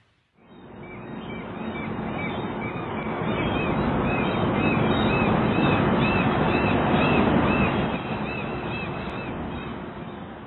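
Seagulls calling over and over in short, arching cries, over a steady rushing noise that fades in, swells and fades out again near the end.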